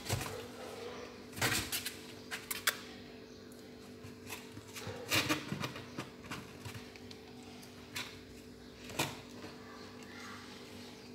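Cats moving about in a cardboard box: scattered knocks, scratches and rustles on the cardboard and the bag lining it, over a steady low hum.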